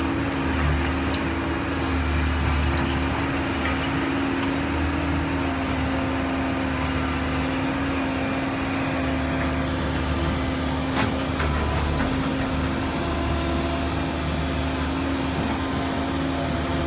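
Kobelco SK135SR excavator's diesel engine running steadily with a constant drone that swells and eases slightly. A couple of faint knocks come near the middle.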